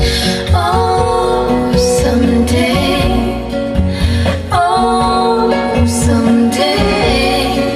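A song with a singing voice and instrumental backing, played back through a pair of JBL 240Ti three-way floor-standing loudspeakers driven by a tube preamplifier, heard through the room.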